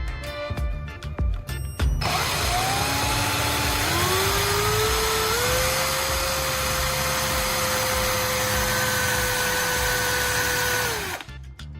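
An electric power tool's motor starts about two seconds in and climbs in steps to a steady speed with a loud hiss. It runs for several seconds, then winds down and stops near the end. Background music with a beat plays before it starts.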